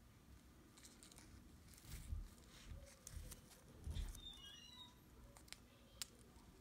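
Faint snipping of small scissors cutting through ryegrass blades at the rim of a plastic cup: several soft, scattered snips with light handling bumps.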